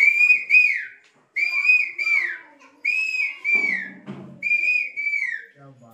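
A man whistling through cupped hands in imitation of an Asian koel's call: four two-note phrases about a second long each, the second note sliding down at its end.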